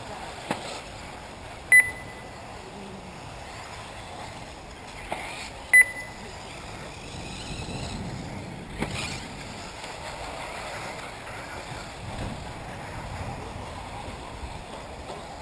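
Electric 1/8-scale RC buggies racing on a dirt track, a steady mix of motor and tyre noise with a few faint knocks, broken by two short, loud high beeps about four seconds apart.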